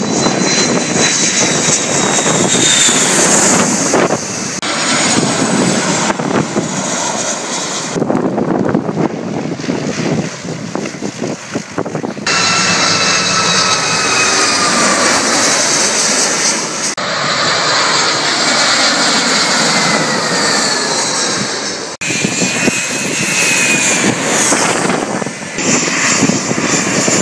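Jet aircraft on final approach passing low overhead one after another, their engines loud, with a whine that falls in pitch as each one goes by. The sound changes abruptly several times as one pass gives way to the next.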